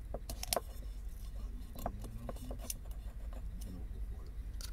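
Hands handling craft materials, a pipe-cleaner antler and tape, at a small terracotta flower pot: scattered light clicks and crinkles, over a steady low hum.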